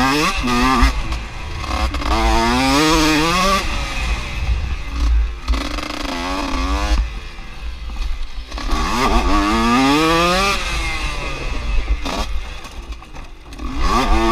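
Enduro dirt bike engine revving hard under acceleration, its pitch climbing in three or four pulls and dropping off in between as the rider shifts or backs off the throttle.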